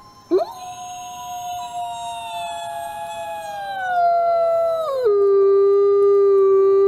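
Gray wolf howling: one long howl that sweeps up sharply at the start, slides slowly downward, then drops abruptly about five seconds in to a lower, louder, steady note.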